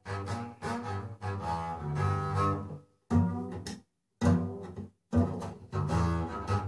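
Recorded song with a strong bass line, played through a pair of two-way bookshelf speakers with SB Acoustics SB15NAC woofers and SB29RDNC tweeters, heard in the room. The music stops for short moments three times around the middle.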